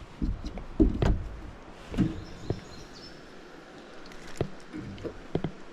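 A few scattered knocks and clunks of handling in a kayak over a low steady background noise, with no speech.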